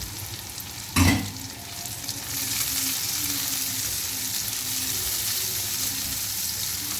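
Onion, garlic and scallions frying in hot oil in a pan, sizzling and being stirred as chilies go in. A sharp knock about a second in, and the sizzle grows louder after about two seconds.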